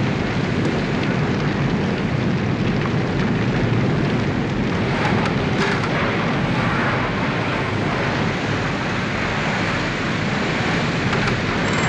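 Steady rushing roar of a large building fire, with faint crackles about five seconds in.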